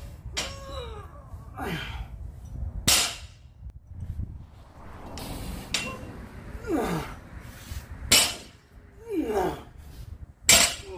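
Barbell with rubber bumper plates hitting a concrete floor three times, sharp and loud, during repeated lifts. Between the impacts the lifter lets out several strained grunts and exhales that fall in pitch.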